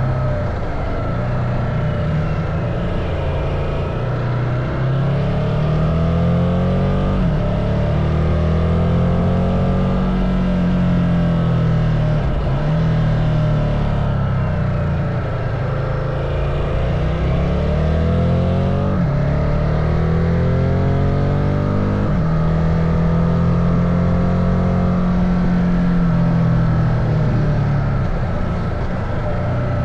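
Ducati Multistrada motorcycle engine running under way. Its pitch rises and falls through the half-minute, with about four sudden drops where gears are changed.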